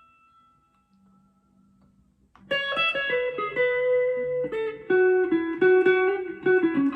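Strat-style electric guitar played clean through a Boss Katana amp. A held note fades to near silence, then about two and a half seconds in a run of single picked notes starts, each note ringing on.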